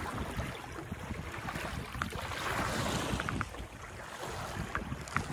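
Water rushing and lapping along the hull of a 1972 Pearson 26 sailboat under sail at about 4.5 knots, with wind on the microphone. The rush swells about two seconds in and eases again.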